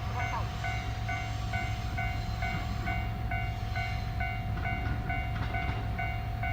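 Level-crossing warning bell ringing steadily, about two dings a second, over the low rumble of an Abukuma Express 8100 series electric train passing through the crossing.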